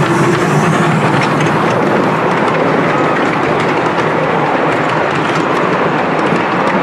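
Miniature railway passenger carriages rolling past close by behind a small steam locomotive: a steady rumble of wheels on the rails with light clicking.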